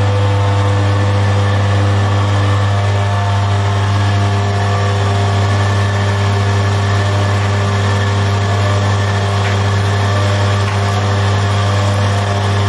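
Electric bakery dough mixer running steadily, a deep, even motor hum as its hook turns the flour and liquid in the steel bowl.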